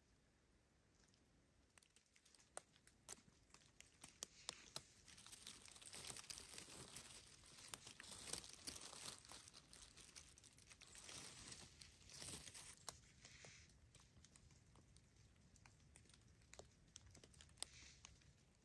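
Dry leaf litter and forest-floor debris rustling and crinkling close by, with many small clicks and snaps, as porcini are handled and dug from the soil. The scraping comes in several swells, strongest in the middle.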